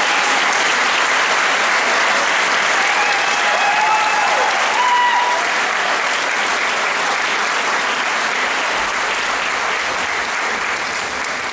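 Audience applauding steadily, with a few voices calling out over it in the first half; the clapping eases off gradually towards the end.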